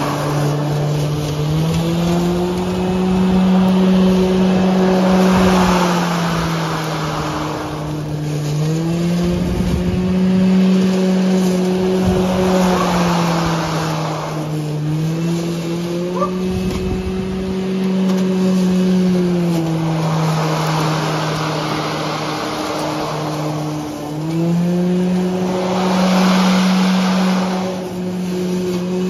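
Makita DLM532 cordless lawnmower's electric motor and blade running, a steady hum whose pitch dips and recovers every few seconds as it takes the load of cutting long grass, with a swishing hiss from the grass coming and going.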